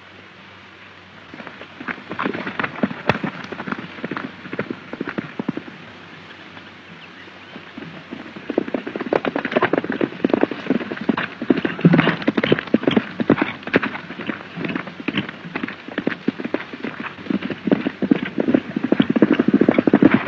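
Galloping hoofbeats, a rapid clatter that starts about two seconds in, eases off for a few seconds, then comes back denser and louder from about eight seconds on, over a steady hiss.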